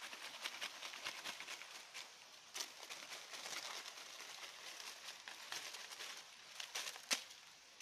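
A leafy red ant nest rustling and crackling as a machete blade hacks and shakes it over a woven bamboo tray, with many small ticks and taps and one sharper knock near the end.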